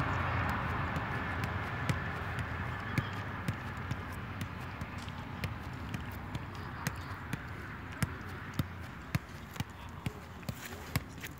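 A football being juggled on the foot: boot taps the ball in a regular run of sharp taps, about two a second, over a steady background hiss that fades during the first few seconds.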